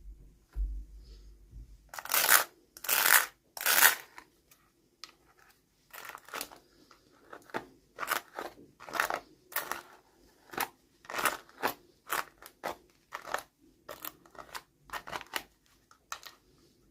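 Toy packaging being cut and opened by hand: three longer, louder crisp strokes about two seconds in, then a run of shorter crisp strokes, about two a second.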